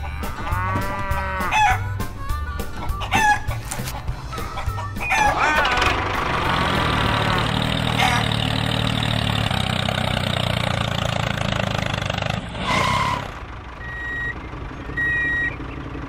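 Chickens clucking and a rooster crowing, over a steady low hum in the middle. Near the end comes a short honk, then a few short high beeps.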